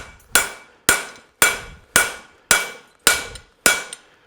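Farrier's hammer striking a fuller held on a hot steel horseshoe on the anvil, cutting the nail groove: a steady run of ringing metal blows, about two a second, each ringing out before the next.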